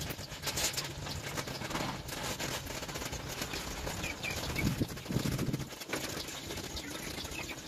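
Gas torch flame hissing steadily as it melts scrap aluminium held against a steel pipe, with birds calling faintly in the background.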